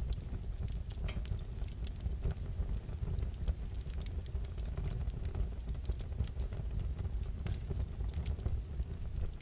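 Wood fire crackling: scattered sharp pops and ticks over a steady low rumble.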